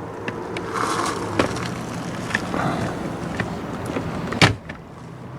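Toyota RAV4 glove box being pushed back and closed: light plastic clicks and knocks, then one loud thump about four and a half seconds in.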